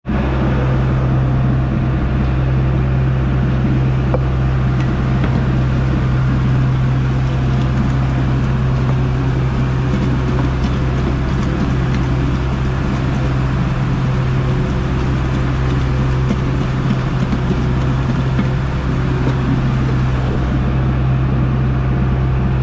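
Fishing boat's engine running steadily under way, a constant low drone.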